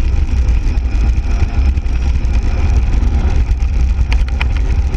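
Wind buffeting the microphone over the rumble of a mountain bike's tyres rolling on rough asphalt, a loud steady low noise. A couple of sharp clicks from the bike come about four seconds in.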